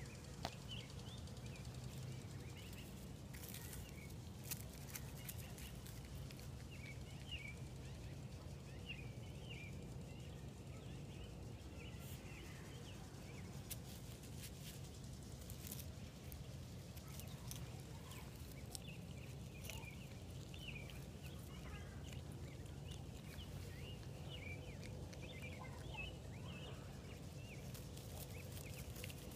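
Faint outdoor ambience: a steady low rumble with short high chirps scattered throughout and a few sharp clicks.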